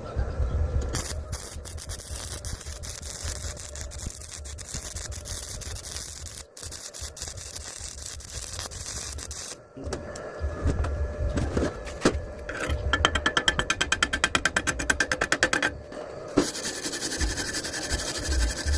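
Electric arc welding: a steady crackling hiss from the arc runs for several seconds, then stops. Later comes a fast, even run of short scraping strokes, and another stretch of hiss near the end.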